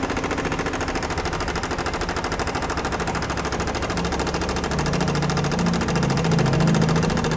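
Yamaha NMAX 155 single-cylinder scooter engine running with a loud, rapid, continuous clatter from a slack cam chain, very noisy because the cam chain tensioner has failed badly. The engine note grows a little louder about five seconds in.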